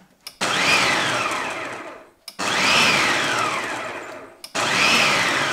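Food processor pulsed three times, each pulse about two seconds long, its motor whine rising and then falling away, as it chops rehydrated shiitake mushrooms with gluten flour and soy sauce into a coarse mince. The third pulse is still running at the end.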